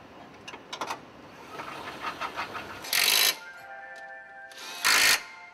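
Handheld cordless power tool running in two short bursts about two seconds apart, driving fasteners into a car underbody, with light clicks of tools and parts before them. Steady tones sound between and after the bursts.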